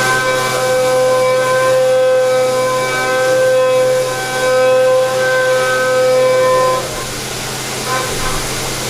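CNC machining center cutting metal, the tool in the cut giving a loud steady high-pitched whine that holds for about seven seconds and then stops. A few short bursts of the same whine follow near the end.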